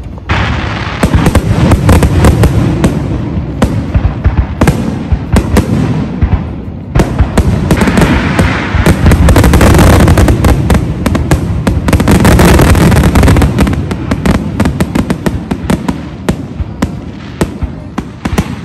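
Aerial fireworks shells bursting in a rapid barrage of booms and crackles, thickest and loudest through the middle and thinning toward the end.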